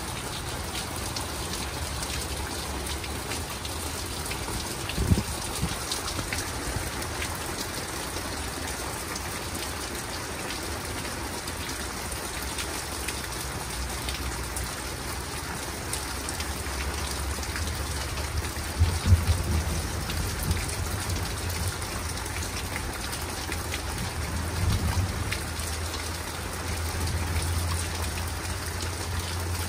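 Steady rain falling, with thunder over it: a sharp crack about five seconds in, a louder crackling clap near the middle, and low rumbling toward the end.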